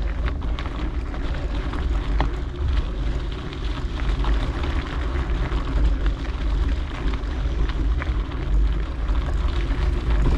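Wind and movement buffeting the microphone of a GoPro worn on a running dog's neck: a steady low rumble with scattered light clicks and scrapes.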